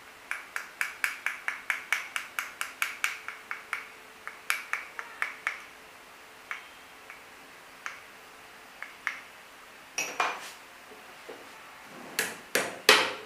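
Light hammer taps knocking the recharged magnets of an e-rickshaw motor into the slots of the rotor housing, so that each magnet seats snugly. The taps come quickly, about five a second, for the first five seconds, then thin out to scattered single taps. A few louder knocks follow near the end.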